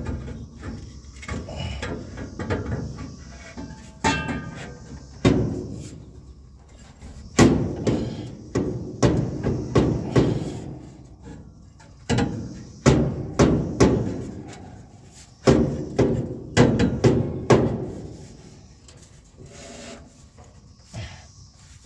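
Steel exhaust muffler pushed and twisted by hand onto the exhaust pipe: a string of metallic knocks and clunks, some in quick pairs, with scraping between them. The knocks thin out near the end.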